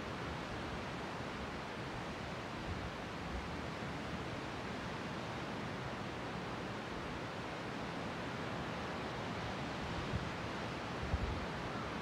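Steady, even wash of sea surf, with no separate waves rising or breaking out of it; a couple of brief low thumps near the end.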